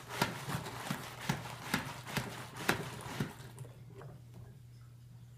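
A stirring utensil knocking against the sides of a plastic pitcher as salt is stirred into water, about two knocks a second, stopping a little past halfway.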